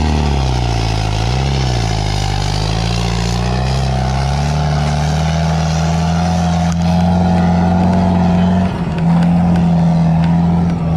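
Farmtrac 6055 tractor's diesel engine pulling away under load: its pitch dips briefly, climbs over a few seconds, then holds steady at high revs, with a short drop about three-quarters of the way through.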